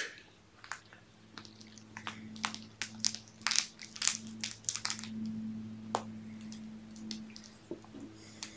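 Irregular sharp clicks and crunches, several a second at times, over a steady low hum.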